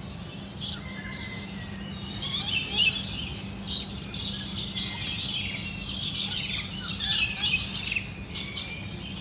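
Many birds chirping and squawking in quick, overlapping calls, sparse at first and busy from about two seconds in, over a steady low hum.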